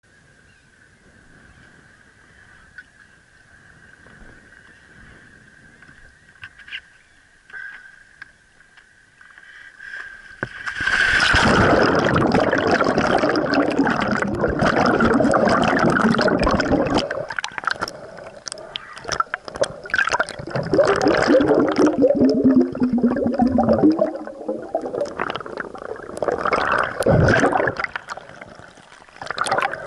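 Muffled gurgling and rushing of water around an underwater camera, loud from about ten seconds in and coming in several long surges with short gaps. Before that there is only a faint hiss with a thin steady high tone.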